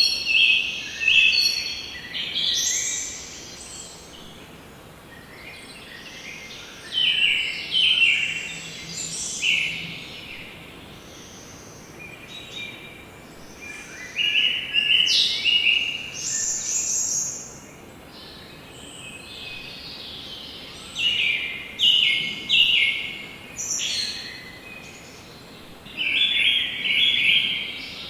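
Songbirds singing: phrases of quick, stepped, high notes come in bursts every few seconds, with quieter gaps of faint steady background noise between them.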